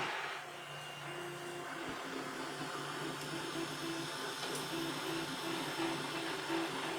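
Wanhao Duplicator 4 3D printer running, its stepper motors humming in short stop-start tones about twice a second over a steady low hum, with knocking from worn bearings.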